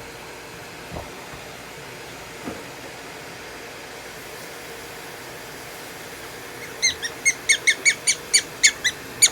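Prairie dog calling in a fast series of short, high chirps, about four a second, starting about seven seconds in, after a stretch with only a couple of faint knocks.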